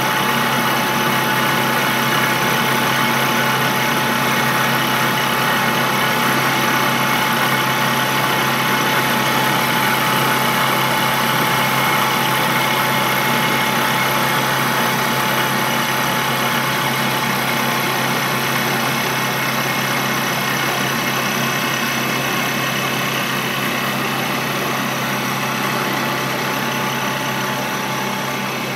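Slant-bed CNC lathe with a powered tool turret cutting concentric grooves into the face of a metal disc: a steady machining noise with a constant high whine, easing slightly near the end.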